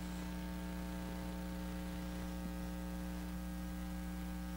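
Steady electrical mains hum, a low hum with a ladder of higher overtones, with no other sound.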